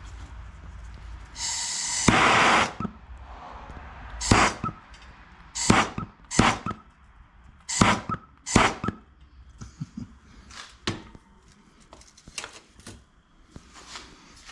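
A short loud burst of hissing noise, then a series of sharp knocks about a second apart. The knocks grow lighter and sparser toward the end.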